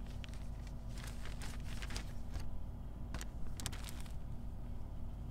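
Rhinestone-studded cloth face masks being shuffled by hand on a car seat: scattered light rustles and clicks over a steady low rumble.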